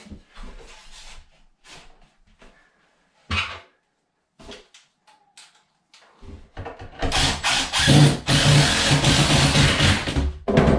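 Quiet handling and a single knock as a wooden shim is set in place, then about six seconds in a cordless driver runs for about four seconds, driving a screw through the cabinet's bottom back into the wall.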